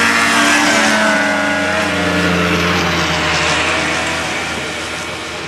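Two snowmobiles running at full throttle down a drag strip, their engines passing by with the pitch falling about two seconds in, then fading as they pull away.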